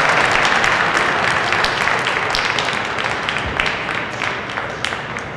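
Audience applauding, the clapping thinning out and dying away.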